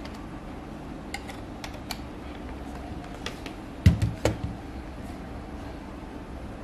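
Handling noises of a Dell Latitude E7240 laptop: small clicks in the first two seconds as the AC adapter plug is pushed into its charging port, then a thump about four seconds in, and a smaller one just after, as the laptop is set back down on the wooden desk. A steady low hum runs underneath.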